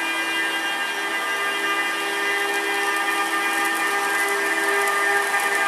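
Electric locomotive moving off slowly, its electrical equipment giving a steady whine of several tones over a hiss, growing slightly louder toward the end.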